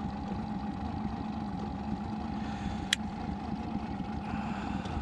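A boat's motor running steadily, with one sharp click about three seconds in.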